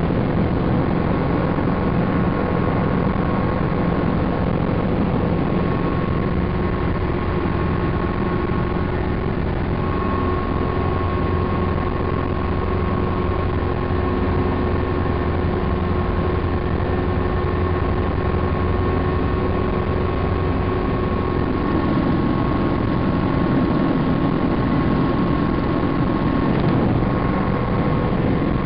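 Helicopter in flight heard from inside the cabin: steady engine and rotor noise with a constant whine running over it.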